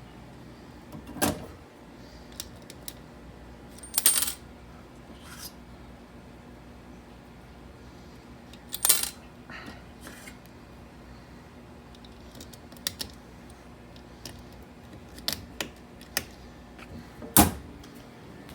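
Sharp clicks and clinks of hard objects being handled, coming at irregular intervals with the loudest near the end, over a faint steady hum.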